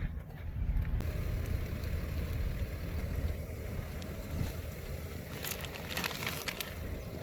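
Wind rumbling on the microphone, with a few short hissing rushes about five and a half to six and a half seconds in.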